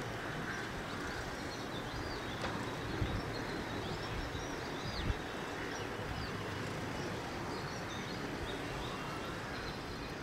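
Small birds chirping in short repeated calls over a steady outdoor background hiss and rumble, with a couple of soft low thumps.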